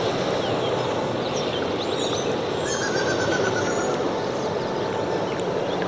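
Steady rushing of a stream with birds chirping over it, including a short trill about halfway.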